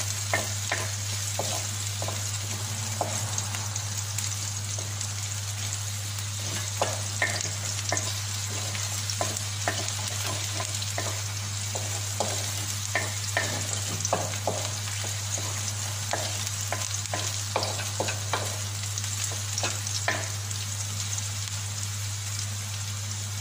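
Chopped onion sizzling in hot oil in a wok while it is sautéed until translucent. A wooden spatula stirs it, scraping and knocking on the pan in frequent short clicks, over a steady low hum.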